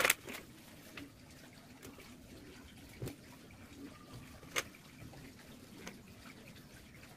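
Small wooden segment blocks of sonokeling rosewood and petai jawa wood clicking and knocking as they are set down and pushed together on a tabletop. There are a few sharp knocks, the loudest right at the start and others about one, three and four and a half seconds in, over a faint steady hiss.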